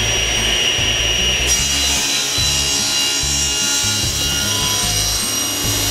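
Table saw running, its spinning blade making an angled crosscut through a laminated block of curly maple and purpleheart; the cutting noise grows about a second and a half in over the saw's steady high whine.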